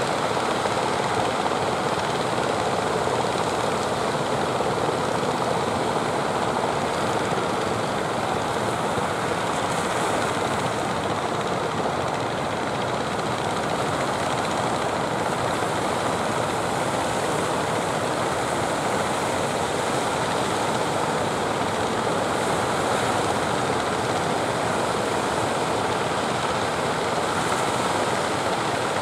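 Steady noise of sea surf mixed with the running engines of jukung outrigger fishing boats, an even rushing with no single engine standing out.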